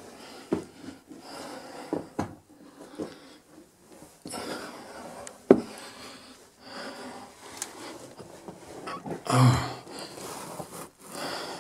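Someone moving about a small stone room: scattered clicks and knocks from footsteps and handling, with rustling and breathing. A sharp knock about five and a half seconds in and a brief louder rustle near nine and a half seconds stand out.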